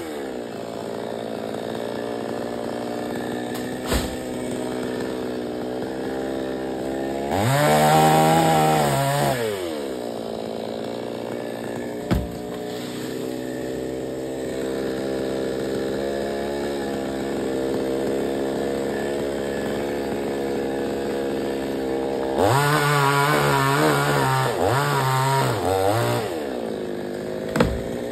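Chainsaw engine running at a steady idle, revved up twice: once for about two seconds near the eight-second mark, and again for about four seconds later on, with its pitch wavering up and down. A few brief sharp knocks.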